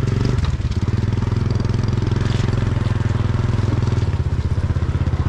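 Motor scooter engine running steadily, heard from on the bike as it rides along a rough dirt track.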